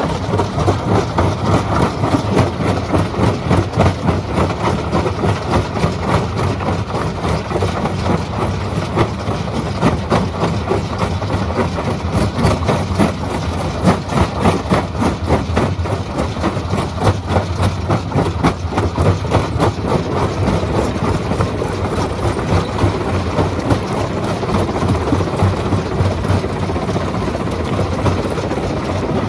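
Stone-crushing machine running: a steady heavy machine drone with continual irregular knocking and clattering of rock being broken.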